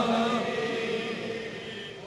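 The echoing tail of a man's chanted Arabic supplication dying away after a phrase ends, a faint held tone fading out within about half a second, then a steadily fading reverberant hush.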